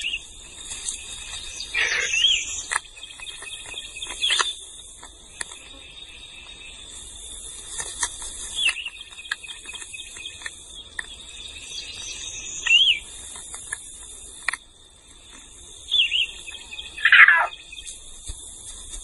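Several short, high animal chirps spread through, the loudest near the end, over a steady high-pitched hum.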